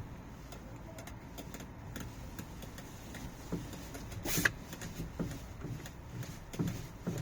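Steering wheel of a Volta V1 electric car rubbing as it is moved, giving irregular faint scrapes and clicks with a sharper click and brief squeak about four and a half seconds in. The sound is like a plastic part rubbing somewhere in the steering column, a fault the owner means to take to the service.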